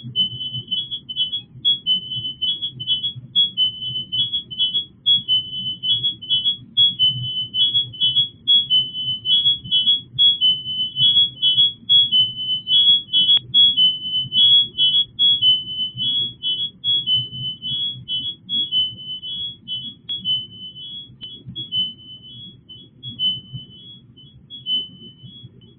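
A rapid run of short high-pitched chirps, flipping quickly between two close pitches in an irregular pattern, over a low steady hum. It sounds electronic. The chirping thins out toward the end.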